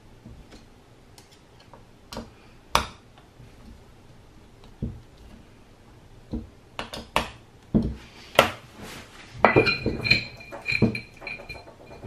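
Screwdriver working the metal cover screws of a Ninebot Mini Pro hub motor wheel as it is closed back up: sharp metal clicks and clinks, sparse at first and busier in the second half. Near the end come a few ringing metallic clinks.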